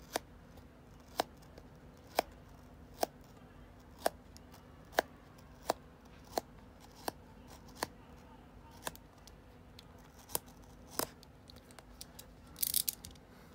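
Snap-off utility knife cutting through the tape seal on a cardboard booster box: a series of sharp clicks about once a second, then a brief rustle near the end.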